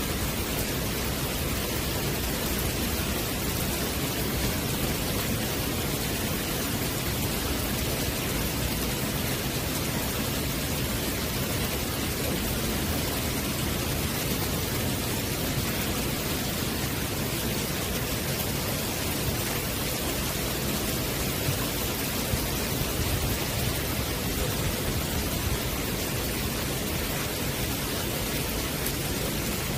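Steady rain falling on a wet wooden deck and its puddles, an even hiss that holds at one level.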